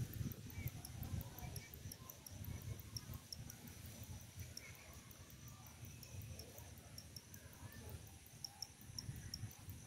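Insects chirping in a steady, even rhythm of short high chirps, about three a second, over a low, uneven rumble.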